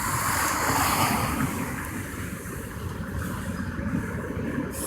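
Cars of a slow-moving freight train rolling past on the rails, a steady rumble, with the hiss of heavy rain.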